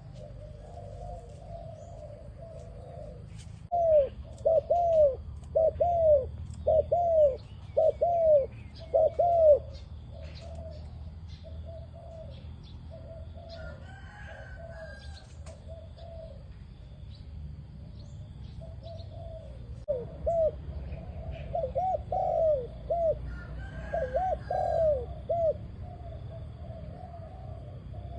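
Dove cooing: runs of short, arched coos in quick succession, about one and a half a second, loud a few seconds in and again in the second half, with softer cooing between. Faint chirps of smaller birds sound above it.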